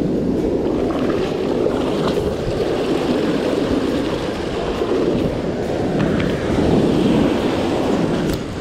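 Shallow beach surf rushing and foaming around wading legs, a steady churning wash, with wind on the microphone.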